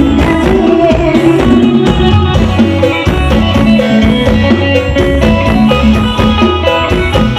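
Loud music with guitar and drums played through an outdoor PA sound system of power amplifiers, speaker cabinets and subwoofers, with strong, heavy bass.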